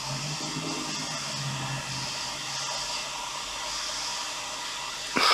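Steady whirring hiss of a small fan or blower on the workbench, with a faint low hum under it; a single sharp click near the end.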